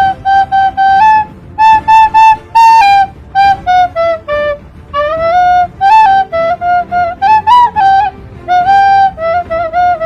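Instrumental music carried by a single flute-like melody: a run of short, separated notes with a few longer held ones, moving up and down within a narrow range.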